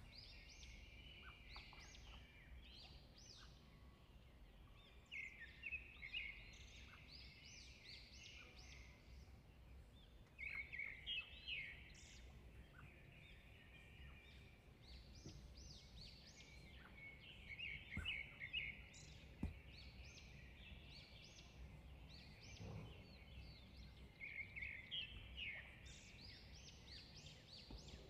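Faint bird chirping: bouts of quick, high notes a second or two long, repeating every few seconds over a low, steady background rumble.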